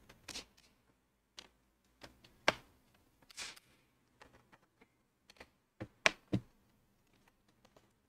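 Scattered clicks and taps of a small screwdriver and screws on a Dell Inspiron 3493 laptop's plastic bottom cover as the cover screws are undone. There is a short scrape about three and a half seconds in, and the sharpest clicks come about two and a half and six seconds in.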